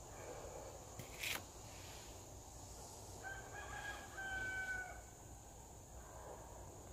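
A rooster crowing faintly, two long held notes about three to five seconds in, after a brief sharp knock about a second in.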